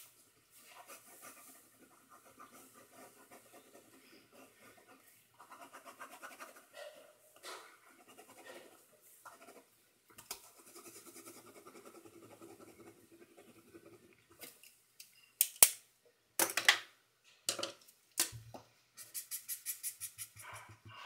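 Pen nibs scratching across paper while drawing: faint, steady scratching strokes at first, then louder sharp strokes about three-quarters of the way in, and a quick run of short hatching strokes near the end.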